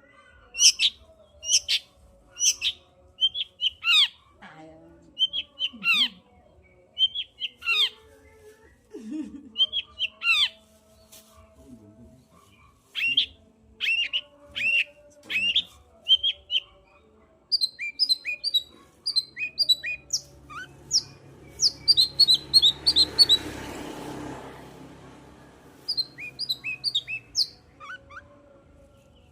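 Long-tailed shrike singing: a long run of short, sharp, downward-slurred notes delivered in quick groups, with a rising and falling rush of noise about three-quarters of the way through.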